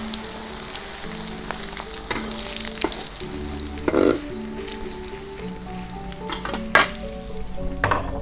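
Tempe cubes sizzling as they fry in hot oil in a stainless steel wok, with a metal spatula scraping and knocking against the wok as they are stirred. There are several sharper clanks of the spatula, the loudest about seven seconds in.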